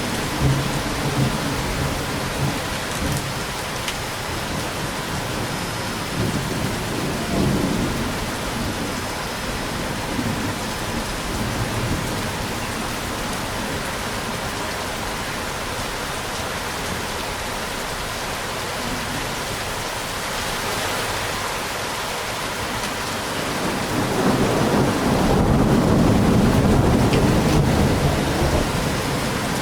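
Steady rain with rolling thunder. Low rumbles come and go, and a louder, longer rumble builds near the end.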